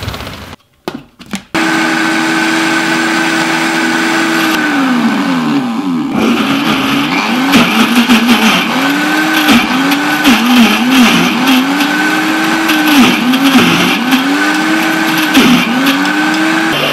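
Countertop blender motor switched on after a few clicks, starting abruptly and running at a steady pitch. It then repeatedly slows and picks up again as a spoon pushes the thick berry-and-banana smoothie mixture down into the blades through the lid opening.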